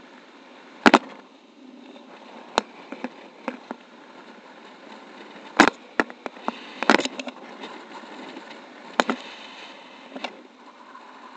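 Airflow hissing steadily over the camera microphone on a paraglider in flight, with about a dozen sharp clicks and knocks at irregular intervals from the camera mount and harness gear.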